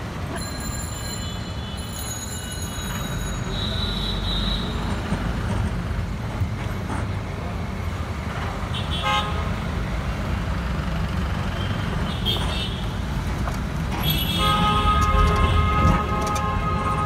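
Steady rumble of busy city road traffic heard from a moving vehicle, with horns honking: a short toot about nine seconds in and a longer, louder honk in the last few seconds.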